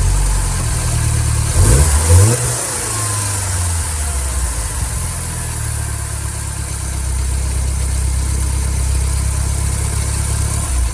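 Second-generation Mini Cooper's four-cylinder engine running with the water-pump friction wheel disengaged, revved briefly about two seconds in and then idling steadily. With the friction wheel off the belt, these are normal engine sounds, without the noise of the damaged drive belt.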